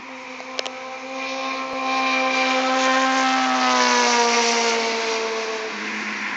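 2008 Kawasaki ZX-10R inline-four engine running through an aftermarket M4 exhaust. The note grows louder to a peak about four seconds in, then its pitch slowly sinks and it quiets.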